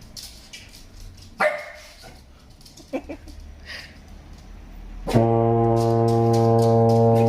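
A deep musical instrument sounding one low note held steady for about two and a half seconds, starting about five seconds in, after a few faint, brief sounds.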